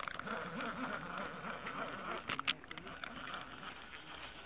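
Faint, distant talking of another person, over a light steady hiss, with a couple of sharp clicks about two and a half seconds in from fishing tackle being handled close to the microphone.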